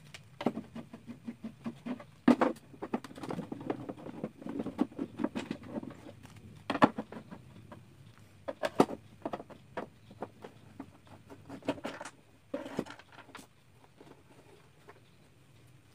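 Screws being taken out of the plastic back cover of a Samsung 21-inch slim CRT television with a screwdriver: irregular clicks and taps, thinning out near the end.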